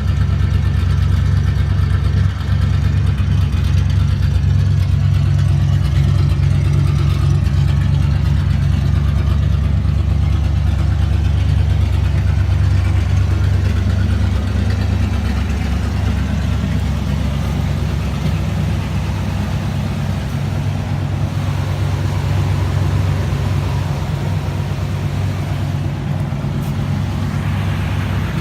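Buick 401 cubic inch Nailhead V8 idling steadily through a straight-piped exhaust with the muffler cut off.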